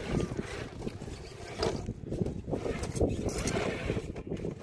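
Traxxas TRX-4 Bronco RC crawler working over rocks and loose dirt: irregular crunching and knocking of its tyres and chassis on stone and soil.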